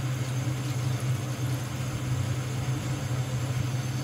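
Water pouring from a spout into a pot of meat and vegetables, a steady splashing hiss, over a continuous low mechanical hum.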